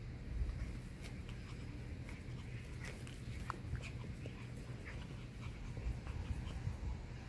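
Two puppies play-fighting, giving short, high whimpers and yips scattered through, one brief whine standing out about halfway.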